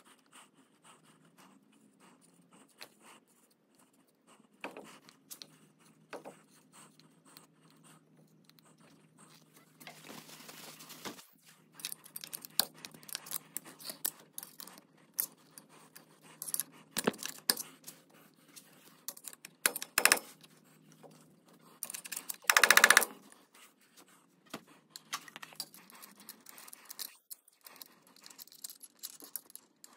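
Small metal clicks, taps and scrapes as the spindle nut, washer and hand tools are worked on a K5 Blazer's front wheel hub. A louder noise lasting about a second comes around three quarters of the way through.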